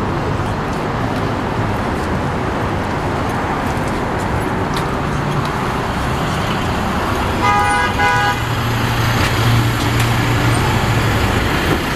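LiAZ 5292.22 city bus running as it pulls up at the kerb, a steady engine hum with traffic noise around it. About seven and a half seconds in comes a brief pitched beeping toot lasting under a second.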